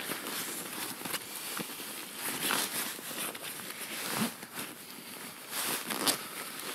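Close rustling and crinkling, with a few short knocks scattered through.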